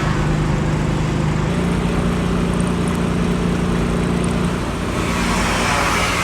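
Milling machine running and cutting a slot down through 20 mm iron plate: a steady motor hum with grinding cutting noise over it. The hum steps up slightly in pitch about a second and a half in.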